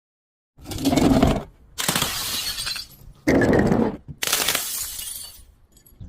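Glass bottles breaking in a series of about four sudden crashes roughly a second apart, each trailing off in a spray of shattering glass, with a few small tinkles near the end.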